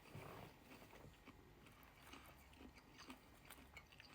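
Faint chewing and mouth noises of a person eating, with small scattered clicks.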